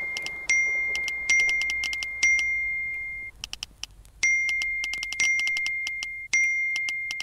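Messaging-app notification sounds: a run of about six bright pings, each starting suddenly and ringing on as it fades. Quick tapping clicks come between them, with a stretch of clicks alone just past the middle.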